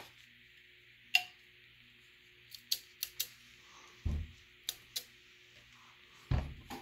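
A string of sharp small clicks, about eight, from the electric kettle's switch assembly and its lever being handled and worked, with two duller knocks as the parts are moved against the kettle base.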